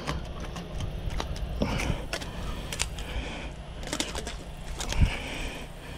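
Irregular clicks and rustling as a hooked redfish is reeled in and landed from the bank, with a dull thump about five seconds in.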